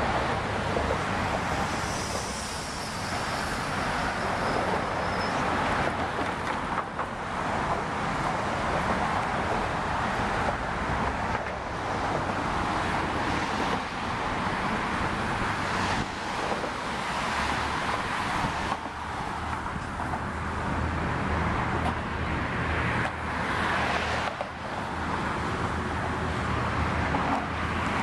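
Steady road traffic noise from cars passing on the bridge roadway, a continuous rumble and hiss that swells and dips slightly, with wind buffeting the microphone.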